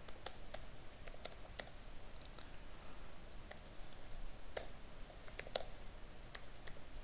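Computer keyboard typing: irregular keystroke clicks, a few in quick succession and then short pauses.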